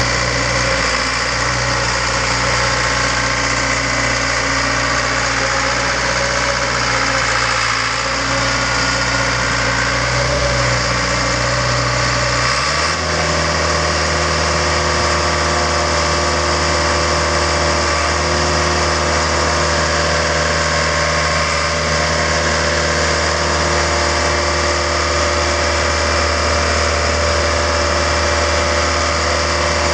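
Caterpillar CP433 sheepsfoot compactor's diesel engine running steadily. Its note changes abruptly about 13 seconds in and then holds steady again.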